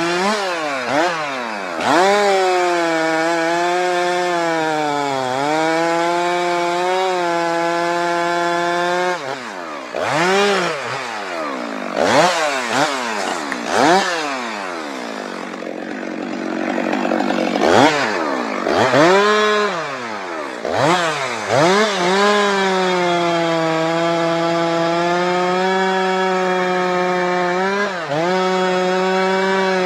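Stihl MS 462 two-stroke chainsaw held at full throttle in a cut through a spruce trunk for the first several seconds. It is then revved up and down many times, dropping briefly toward idle in between, and is held at full throttle again for the last several seconds.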